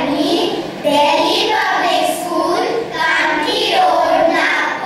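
A group of schoolchildren singing together, holding sung notes in short phrases with brief breaks between them.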